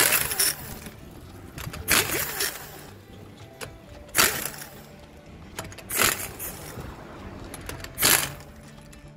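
Pneumatic air impact wrench loosening wheel lug nuts in five short bursts, about two seconds apart.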